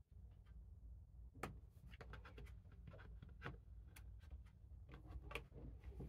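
Faint scattered clicks and light scraping from the plastic bottom cover of a Lenovo ThinkPad P14s Gen 5 laptop being pried loose with a plastic pry tool and the laptop being handled. The clicks come thicker from about two seconds in.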